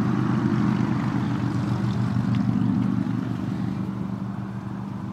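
2017 Hyundai Santa Fe engine running with a knock in it, louder for about three seconds and then easing off. The knock shows when the engine is given gas, and the owner takes it for something inside the engine knocking, not the transmission.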